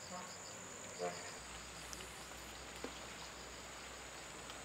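Insects droning and chirping: a steady high buzz with a quick, repeated high chirp over it, and a brief low call about a second in.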